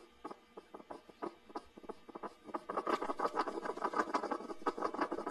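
Hedgehog snuffling with a rapid run of small clicks and ticks, growing busier and louder about three seconds in.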